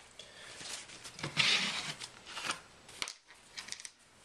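Handling noises while preparing to wipe a phone's bare frame with alcohol: a brief rustling scrape about a second and a half in, then a few small clicks near the end.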